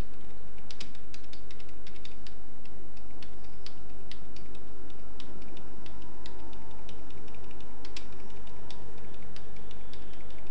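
Computer keyboard keys being pressed in short, irregular runs while text is edited, over a steady low hum.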